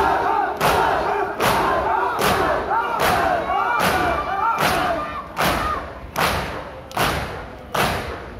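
A large crowd of mourners performing matam, beating their chests in unison: sharp slaps land together on a steady beat a little faster than once a second. A mass of voices chants over the beat, then falls away about six seconds in, leaving the slaps on their own.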